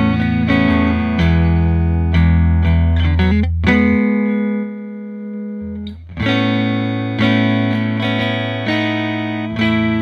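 Tele-style electric guitar played through an amp on its Artec Alnico 5 big-pole-piece neck single-coil pickup, with the guitar's volume knob rolled down. It plays a riff of picked bass notes and chords, lets one chord ring and fade about four seconds in, then picks the riff up again about six seconds in.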